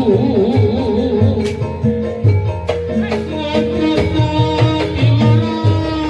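Live Reog gamelan ensemble playing: held pitched notes over repeated drum beats, with a wavering melody line near the start.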